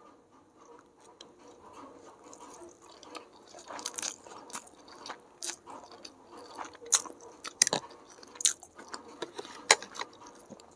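A mouthful of stir-fried chowmein noodles with vegetables being chewed close to the microphone: soft chewing with many sharp mouth clicks, more frequent and louder from about four seconds in.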